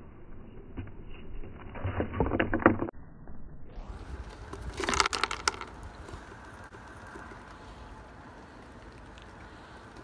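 Eastern chipmunk crunching shelled peanuts: two short bursts of rapid crackling, about two seconds in and again about five seconds in.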